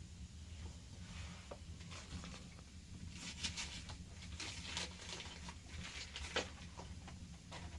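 Irregular rustling, scraping and light clicks of things being handled, bunched in the middle of the stretch with a sharper knock about six seconds in, over a steady low hum.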